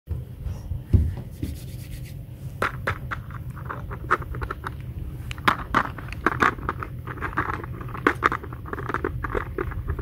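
Hard plastic toy kitchen pieces being handled: a plastic toy pizza and pan with a plastic pizza cutter, giving many small clicks, taps and scrapes, more frequent after the first couple of seconds, over a steady low rumble.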